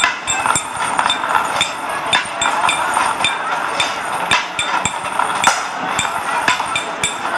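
Many sharp knocks and taps in quick, irregular succession, made by hands striking a stage floor, over a steady background hiss.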